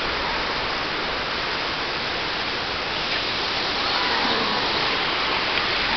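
Steady rush of water, with added splashing from about four seconds in as a bottlenose dolphin rises upright out of the pool and churns the surface with its tail.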